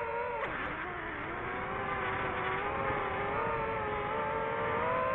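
DJI FPV drone's motors and propellers whining with several pitched tones; about half a second in the pitch drops sharply, then climbs slowly back up.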